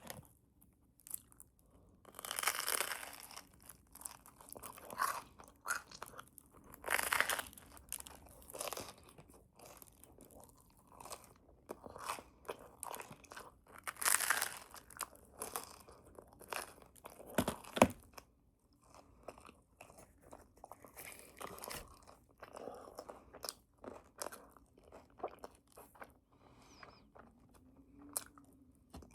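A person biting and chewing a crunchy bagel spread with cream cheese, loud crunches coming in irregular bursts with quieter chewing between. A sharp snap a little past halfway is the loudest sound.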